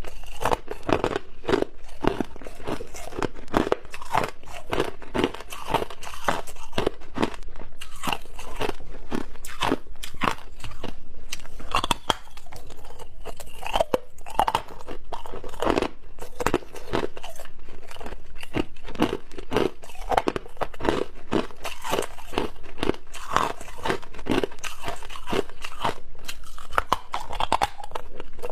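Close-miked crunching of chunks of hard clear ice being bitten and chewed: a steady run of sharp crunches and cracks, several a second.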